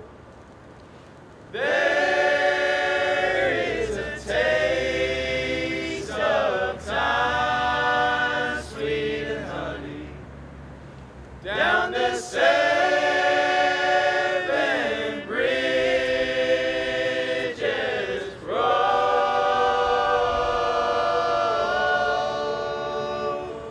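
A male vocal ensemble singing together in harmony, in phrases broken by short pauses, ending on a long held chord that fades near the end.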